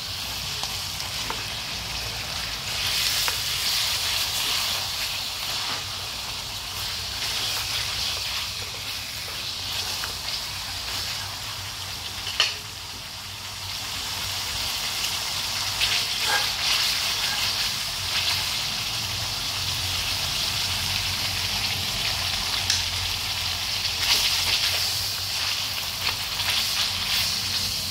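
Lemongrass-coated pork cutlets sizzling and crackling steadily in hot oil in a steel pan, with stirring. One sharp tap about halfway through.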